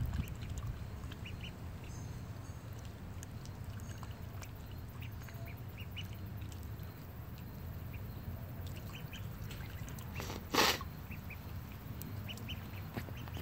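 Ducks calling: a scatter of short, faint calls over a steady low rumble, with one short, louder sound about ten seconds in.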